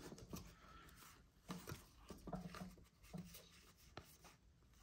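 Faint, soft rustling and flicking of baseball trading cards being slid through a stack by hand, one card past another, with a few light ticks as the card edges catch.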